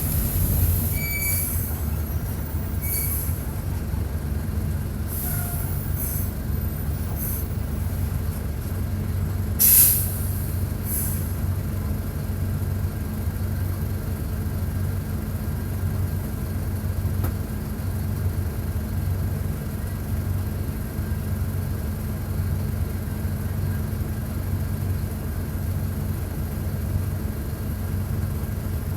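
Mercedes-Benz OF-1722 bus's six-cylinder turbodiesel engine running steadily, heard close to the engine. A short, sharp hiss cuts in briefly about ten seconds in.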